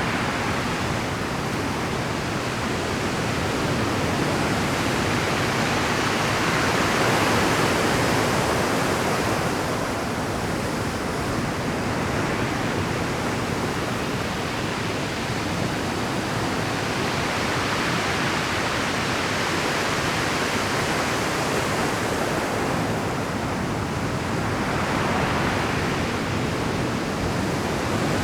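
Heavy Pacific surf breaking and washing over a rocky shore in a continuous roar. The rush swells louder as big waves come in, about a quarter of the way through and again near the end.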